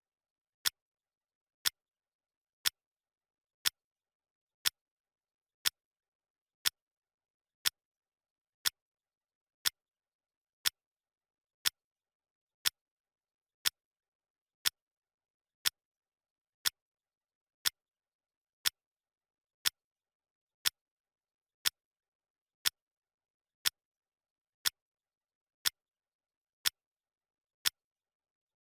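Clock ticking sound effect marking a countdown: one sharp, short tick every second, evenly spaced, with silence between ticks.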